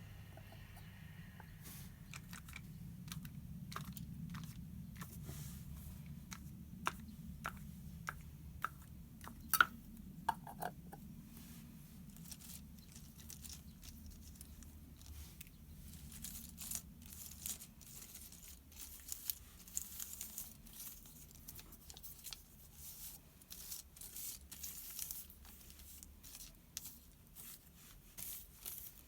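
Metal paper clips clicking and clinking against each other as they are sorted by hand on gift wrap paper, with the paper rustling and crinkling under them. The clinks are sharpest and loudest about a third of the way in; after that, quicker rustling crackles take over.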